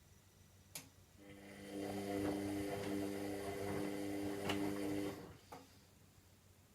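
Washing machine drum motor starting with a click, humming steadily for about four seconds as it turns the drum, then stopping, followed by another click.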